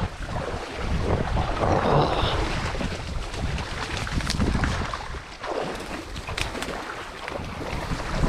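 Blizzard wind buffeting the microphone: a gusting low rumble that swells and eases, briefly dropping about five seconds in.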